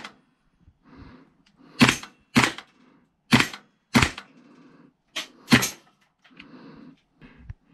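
A series of six sharp cracks over about four seconds, falling loosely into pairs, with a faint low rustle between them.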